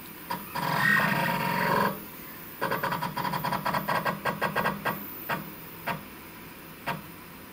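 Stepper motors of a DIY CNC router jogging the router head down toward the workpiece. First comes a continuous move of about a second and a half with a steady pitched hum. Then comes a quick run of short stepping buzzes, about seven a second, and a few single short steps as the head is nudged down in small increments.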